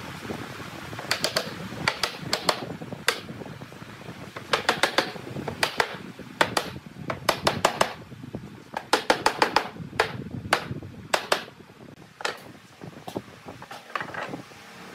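A mallet knocking on a wooden bed-frame rail in quick runs of several taps, again and again, driving glued tenon joints home. The taps thin out in the last few seconds.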